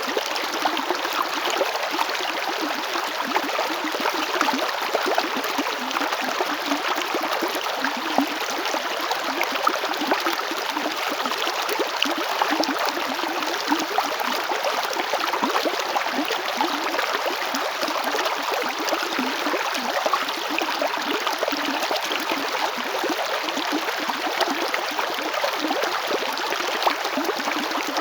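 River water flowing over stones, a steady rushing and babbling with small splashes throughout.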